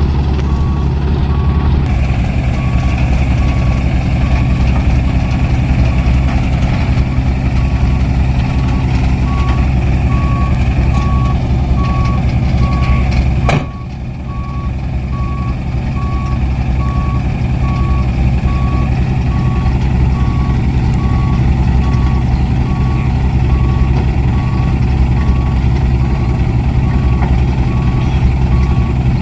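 Hino diesel dump truck running in reverse, its reversing beeper sounding in a steady, evenly spaced beep over the engine drone. About halfway through there is one sharp knock, after which the engine noise briefly drops and builds again.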